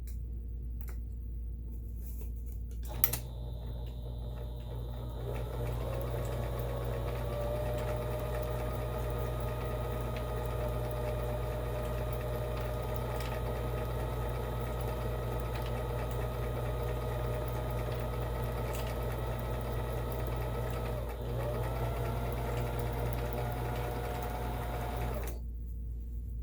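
Kenmore 17922 electronic sewing machine sewing a decorative stitch pattern. A click about three seconds in, then the motor speeds up and runs steadily. It stops briefly near the end, starts again, and stops.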